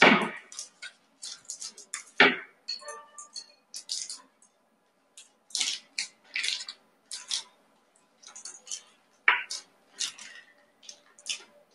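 Crinkling and rustling of plastic sterile packets of lipolysis needles being picked up and sorted through by hand, in short irregular bursts.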